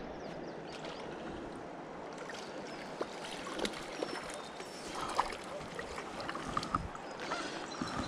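Steady rush of flowing river water, with a few light clicks and ticks scattered over it.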